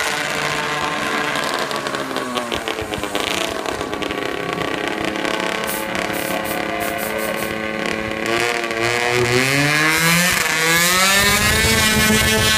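Engine of a small exhibition drag-racing vehicle running at the start line, then climbing steadily in pitch and getting louder from about eight seconds in as it launches and accelerates down the strip.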